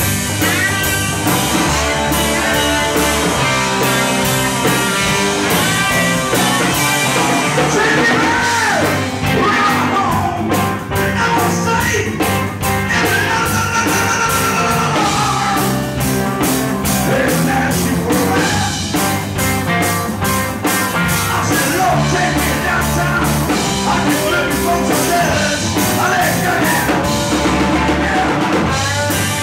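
Live blues-rock band playing loud: electric guitars, acoustic guitar, electric bass and drum kit with a steady beat, and a harmonica played into the vocal microphone with bending notes.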